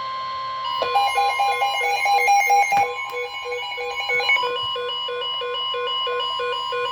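NOAA Weather Radio warning alert tone: a steady electronic tone near 1 kHz that announces a new warning, here a flash flood warning. An electronic alarm beeps rapidly over it, in a quick pattern for the first few seconds, then in even beeps about three a second.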